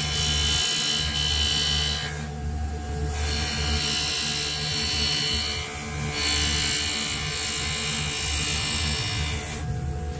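Metal engraving with a graver: a steady mechanical hum under a high hiss that drops out briefly about two seconds in and again near the end, as the tool is worked on the metal.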